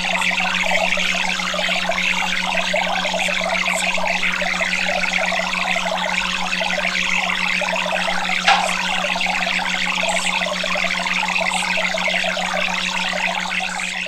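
Steady rushing, trickling noise of running water with a steady low hum underneath and a single click about halfway through; it begins to fade at the very end.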